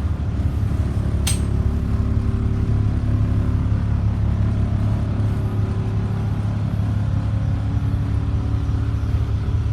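Caterpillar diesel engine of a Blue Bird All American school bus idling steadily, heard from inside the bus, with one sharp click about a second in.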